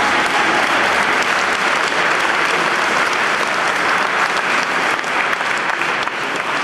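Audience applauding: dense clapping that eases off slightly near the end.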